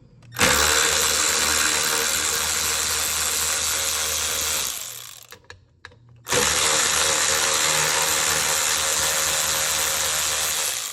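Power drill running twice, about four seconds each time with a short pause between, backing out the two bolts that hold the rear seat latch bracket.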